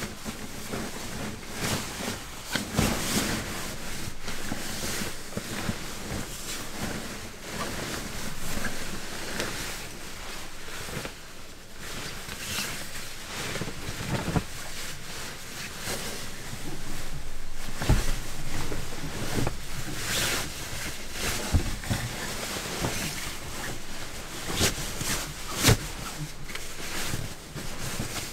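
Synthetic sleeping bag rustling and swishing as it is folded up and stuffed into its stuff sack, with a few sharper handling knocks.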